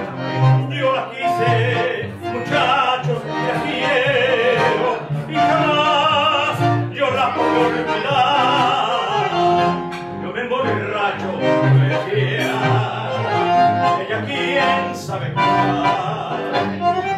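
Live tango: a man singing into a microphone with a strong vibrato, accompanied by a bandoneon and a double bass playing low notes underneath.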